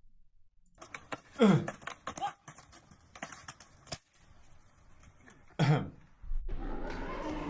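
Skateboard clattering on concrete in a run of sharp knocks and clicks, with a person's short falling cry about a second and a half in.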